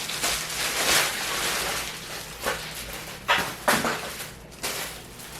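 Packaging rustling and crinkling as the backdrop is pulled out and unwrapped, with a few short sharp crackles in the middle.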